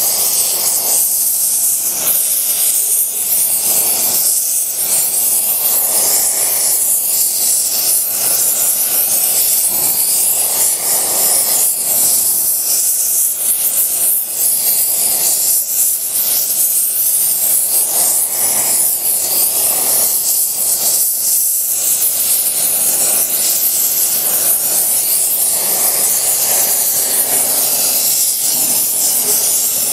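Gas torch flame burning with a steady hiss as it heats a steel flywheel ring gear so the ring expands enough to slip onto the flywheel.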